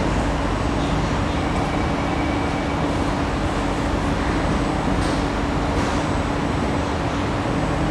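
Singapore MRT train running through a tunnel, heard inside the carriage: a steady rumble of wheels on rails with a constant low motor hum.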